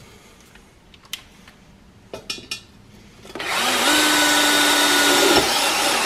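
DeWalt cordless drill driving a screw into the steel furnace lid. The motor spins up about three seconds in, runs steadily at one pitch for about two seconds, then stops. A few light clicks of handling the screws come before it.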